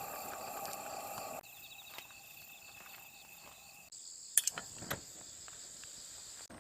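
Insects, crickets among them, chirping in a steady high trill, with pulsing chirps in parts, across several abrupt cuts between clips. A few sharp clicks come about four and a half seconds in.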